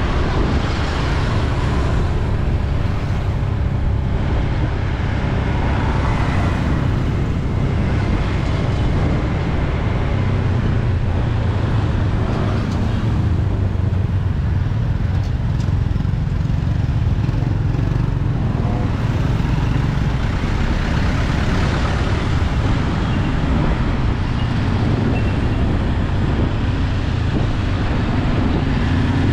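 City street traffic heard from a moving bike: a steady mix of vehicle engines and road noise with a heavy low rumble.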